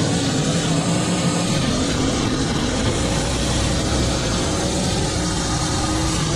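Small gasoline engine of lawn equipment running steadily under load, its pitch wavering slightly.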